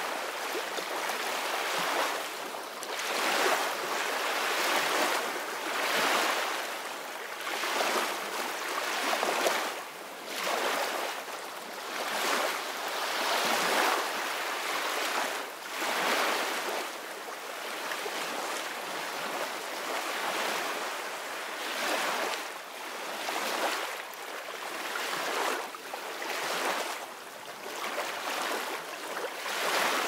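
Small waves breaking gently and washing up a sandy beach: a hiss of surf that swells and fades about every two seconds.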